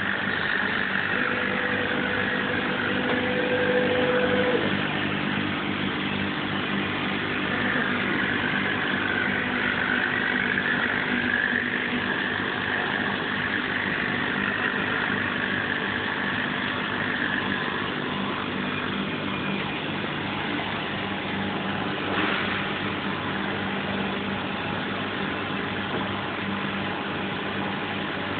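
Steady hum of running machinery with a wavering whine over it. A short higher tone sounds in the first few seconds, and a single click comes about 22 seconds in.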